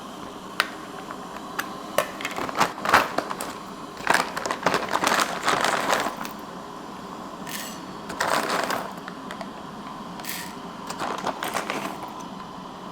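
Coffee beans rattling as they are poured or scooped into a cup on a coffee machine's built-in scale, in several short bursts with scattered clicks in between.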